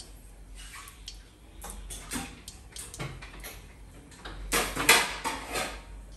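Cumin seeds crackling and popping in hot oil in a wok: irregular sharp pops, with a louder run of them about four and a half seconds in.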